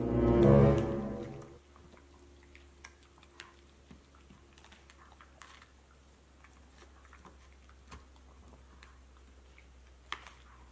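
A short musical sting swells and fades within about a second and a half. After it comes a quiet room with a low steady hum and a few faint scattered ticks, and one sharper click near the end.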